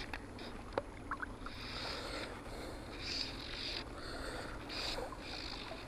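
River water flowing and sloshing, with a few faint clicks.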